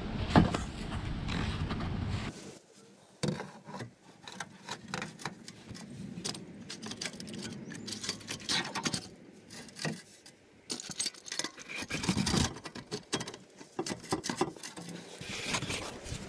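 Steel hand tools clinking, rattling and scraping against a car's exhaust pipe and its U-bolt clamp, in a string of irregular sharp metallic clicks. A denser, louder stretch of scraping cuts off about two seconds in.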